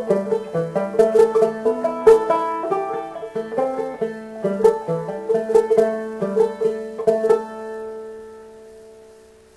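Banjo picking a quick tune, which ends about seven seconds in on a final chord left to ring out and fade away.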